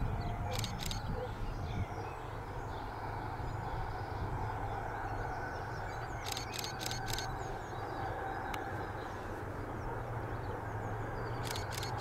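Outdoor rural ambience: a steady low rumble with faint bird chirps, broken three times by short runs of sharp, high clicks.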